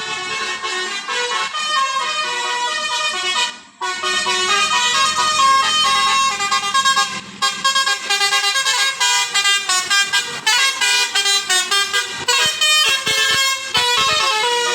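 Basuri telolet multi-tone bus horn playing a quick melody, note after note. It breaks off briefly about four seconds in, then plays in short, choppy blasts from about halfway on.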